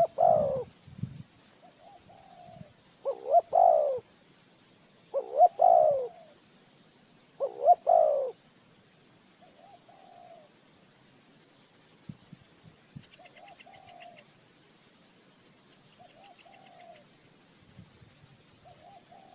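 A spotted dove, used as a decoy caller, cooing: four loud coo phrases about two seconds apart over the first eight seconds, then only fainter, shorter coos every few seconds. A brief high chirping trill comes twice near the end.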